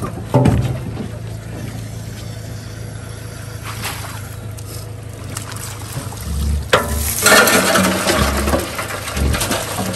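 Water splashing and streaming off a wire-mesh crawfish trap as it is hauled out of the swamp and lifted over the boat, starting about seven seconds in, over the steady low hum of the boat's idling outboard motor.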